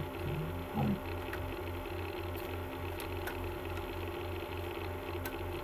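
Quiet handling of a plastic CD case and its booklet: a few faint clicks and taps over a steady low room hum that pulses about three times a second.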